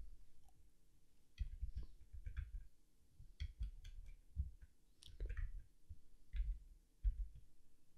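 Faint, scattered clicks and taps of a computer mouse and keyboard in small clusters, many with a dull low knock beneath them.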